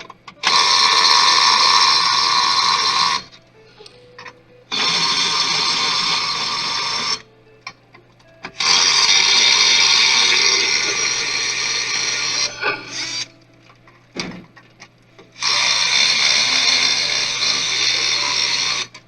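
Small electric screwdriver motor running in four separate bursts of a few seconds each, starting and stopping abruptly, driving screws out of a desktop PC case.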